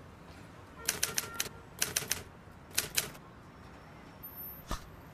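Sharp clicks in three quick clusters of two to four, then a single knock near the end.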